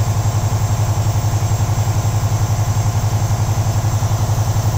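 Freightliner Century truck's diesel engine idling steadily with an even, rapid pulse while its air compressor builds pressure.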